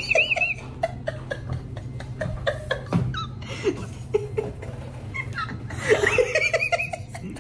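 Men laughing in short bursts, with a high, wavering giggle at the start and again about six seconds in.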